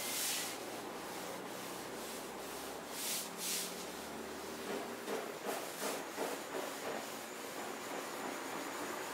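Sponge applicator rubbing over car window glass, scrubbing in a foaming acid cleaner to lift water-spot stains. The strokes come unevenly: one at the start, two about three seconds in, and a quicker run of strokes just past the middle.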